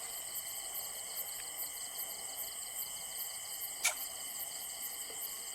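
Steady chorus of insects chirring, with a rhythmic pulsing in the high range, and one sharp click about four seconds in.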